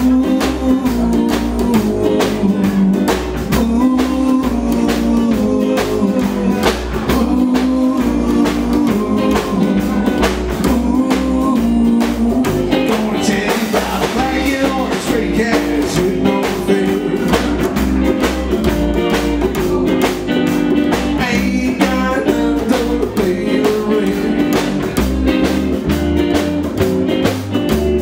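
Live band playing rock and roll: upright double bass, electric guitar and drum kit, with a steady beat.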